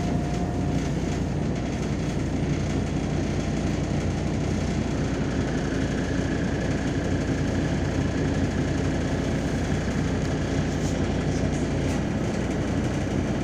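MAZ-203 city bus running on the road, heard from inside the passenger cabin: a steady mix of engine and road noise, with a faint high whine joining in about five seconds in.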